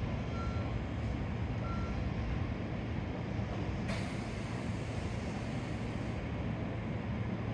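Stationary 373 series electric train idling at the platform with a steady low hum. Two short high beeps sound in the first two seconds, and about four seconds in a sudden hiss of air starts and runs for about two seconds.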